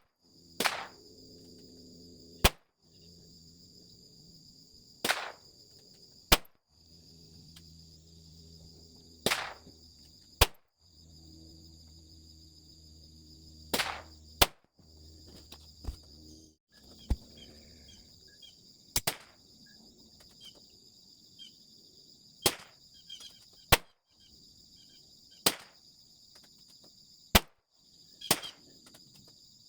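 Smith & Wesson Victory .22 LR pistol, fitted with a muzzle brake, firing single shots at a steady pace, roughly one every one to three seconds, about fifteen in all. Insects buzz steadily in the background.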